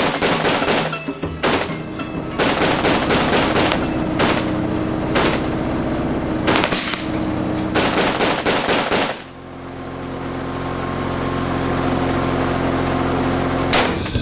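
Bursts of rapid machine-gun fire, about six volleys in the first nine seconds. The firing then stops and a steady low hum swells up, with one sharp knock near the end.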